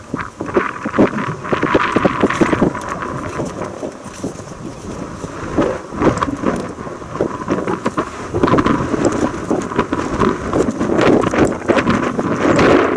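Norfolk & Western 475, a 4-8-0 steam locomotive, working hard as it approaches, its exhaust coming as a dense run of irregular chuffs.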